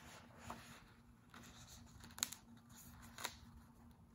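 A page of a hardcover picture book being turned by hand: a soft paper swish, then two sharp clicks about a second apart as the book is handled and held open.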